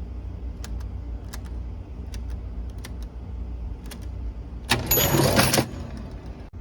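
Restored National Model 1500 cash register being worked: scattered sharp clicks of its keys and mechanism, then about five seconds in a loud mechanical rattle lasting about a second with a high bell ring over it. A steady low hum runs underneath.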